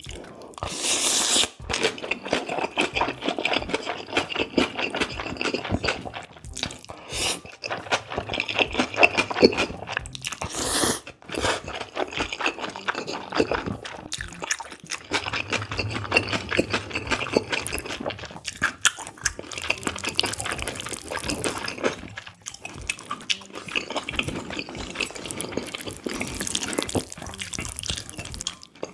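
Close-miked eating: wet chewing and slurping of spicy cold noodles mixed with raw beef, with long slurps about a second in and again about ten seconds later.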